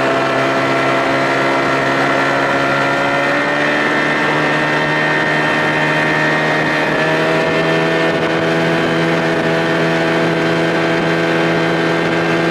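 Outboard motor running steadily under way, its note rising slightly a few seconds in and again around halfway, over wind and water noise.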